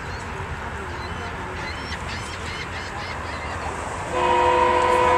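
Commuter rail locomotive's air horn sounding one loud blast of several tones at once, starting about four seconds in, over a steady low rumble.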